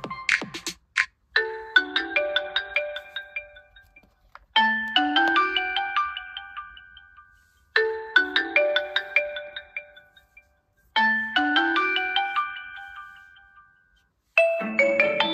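Huawei P60 Pro ringtone: a short, bright, bell-like mallet melody played four times, about every three seconds, its notes ringing and fading after each phrase. A different ringtone starts near the end.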